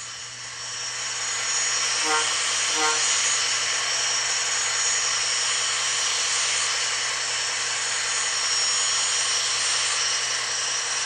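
Union Pacific gas-turbine locomotive sound from an HO scale model's ESU LokSound 5 decoder, played through its two MTH speakers. A steady turbine whine and hiss swells over the first second or two as the model starts to crawl at speed step 1, and two short beeps sound about two seconds in.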